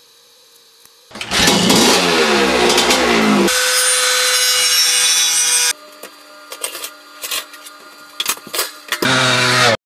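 A cut-together run of workshop sounds: a motorcycle engine revving with rising pitch, then a grinder cutting metal with a loud steady hiss and whine that stops sharply, then scattered clicks and knocks, and a short loud engine burst near the end that cuts off abruptly.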